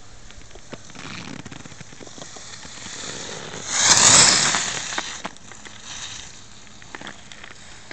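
Alpine skis carving a giant slalom turn on packed snow close by: the edges scrape the snow in a hiss that swells about four seconds in and fades over the next second, with a softer scrape about a second in.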